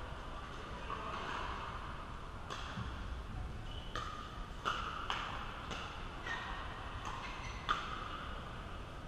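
Pickleball paddles striking a plastic ball during a doubles rally: sharp hollow pops, about ten at an uneven pace, each ringing briefly in a large indoor hall.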